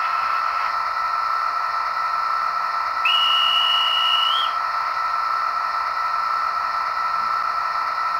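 Sound-equipped Märklin Citybahn model train standing at the platform: a steady tinny drone from its onboard sound speaker, and about three seconds in a single shrill whistle held for about a second and a half, rising slightly at the end, signalling departure.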